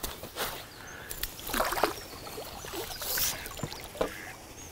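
Water splashing and trickling in a few short bursts, with a couple of sharp clicks in between.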